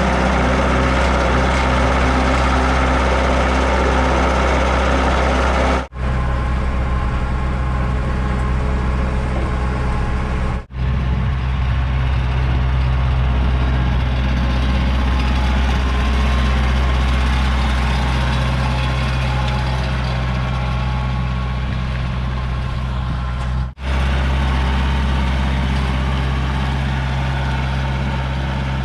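Truck engine running steadily while towing a loaded dump trailer, a constant low hum that breaks off abruptly three times and picks straight up again.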